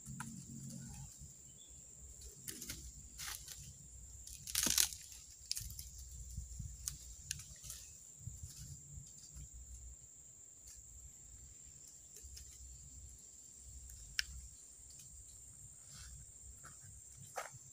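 Dry twigs and forest litter crunching and snapping as firewood is gathered by hand, with irregular sharp cracks, the loudest about five seconds in.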